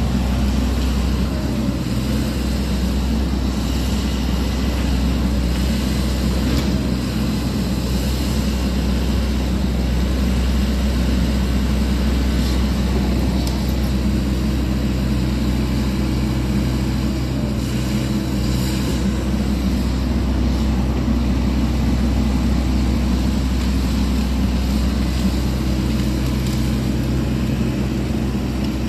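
Sany SY80 excavator's diesel engine running steadily as the machine works, a constant low rumble.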